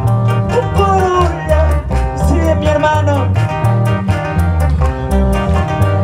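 Live band music: keyboards and electric guitar over a strong bass line and a steady, quick beat, with a lead melody gliding between notes.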